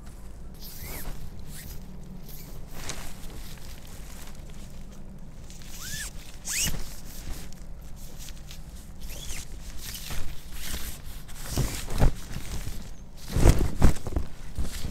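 Rustling and handling noises with several short zipper-like rasps, then a few heavy thumps near the end.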